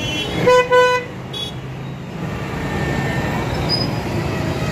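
A vehicle horn gives two short toots in quick succession, over steady street traffic noise.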